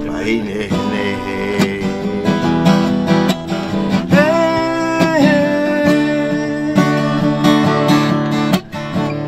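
Acoustic guitar being strummed while a man sings along, holding one long note in the middle.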